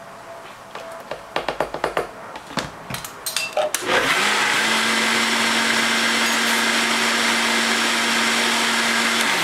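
A few sharp clicks and taps, then a countertop blender switches on about four seconds in and runs steadily at high speed, puréeing eggs, drained black beans and vanilla into batter, until it cuts off just before the end.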